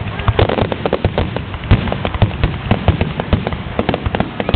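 Fireworks display going off in a dense barrage, many bangs and crackles overlapping, several a second.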